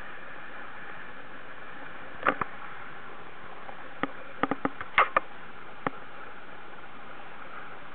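Steady rush of water along the hull of an outrigger sailing canoe under way, with a scatter of sharp knocks and clicks in the middle, about two to six seconds in.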